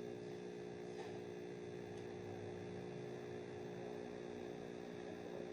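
Steady low electrical hum, with two faint clicks about a second apart near the start.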